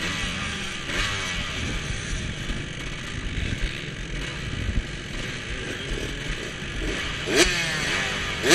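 Off-road dirt bike engine running hard and revving up and down, with two sharp rises in pitch near the end.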